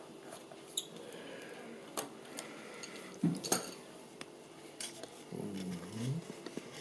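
Small screwdriver working the keyboard screw out of a laptop's underside: scattered light metallic clicks and clinks of the tool and screw against the case.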